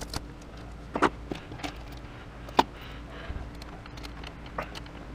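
Scattered sharp clicks and knocks from hand work, the loudest about a second in and just past the middle, over a steady low hum.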